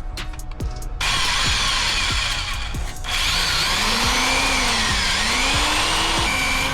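Power drill running on a snapped exhaust bolt, starting about a second in. After about three seconds its motor pitch rises and falls as the bit loads and frees up.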